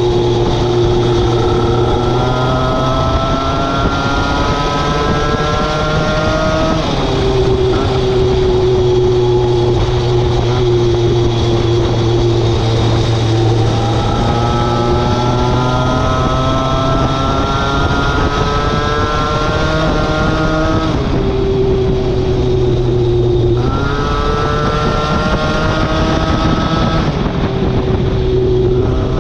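Small moped engine running under way, its note climbing steadily for several seconds as it accelerates, then falling back sharply, several times over.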